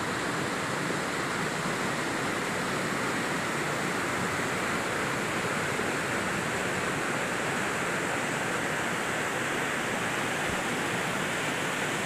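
Rain-fed waterfall spilling over a tall rock ledge: a steady, even rush of falling water splashing below.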